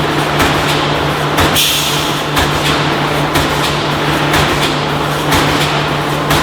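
Automatic steel wire mesh welding machine running: a steady hum under regular clanking strokes about two a second, with a short hiss about a second and a half in.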